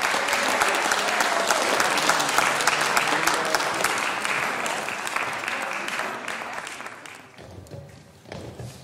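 Audience applauding in a concert hall, dying away about seven seconds in.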